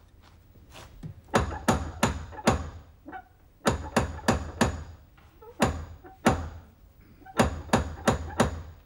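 Loud, sharp knocks or bangs in quick runs of about four, repeated several times with short pauses between the runs.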